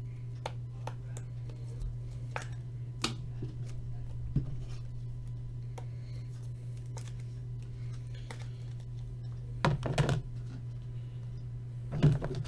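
Scattered light clicks and taps, with a louder cluster about ten seconds in, over a steady low hum.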